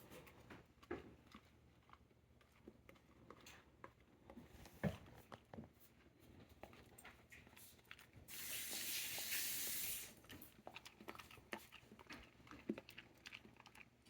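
A dog chewing broccoli: faint, scattered crunches and clicks. About eight seconds in, a steady hiss runs for about two seconds and then cuts off.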